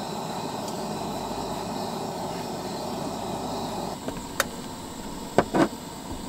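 A steady hiss from a hot stainless steel pan with oil on a propane camp stove burner. About four seconds in it gives way to a knife cutting on a plastic cutting board, with three sharp taps, the last two close together and the loudest.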